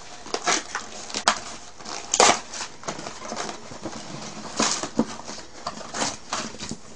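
Cardboard takeout chicken box and its paper rustling and crinkling as hands open it and handle the fried chicken, in irregular crackles with louder ones about two seconds in and again past four and a half seconds.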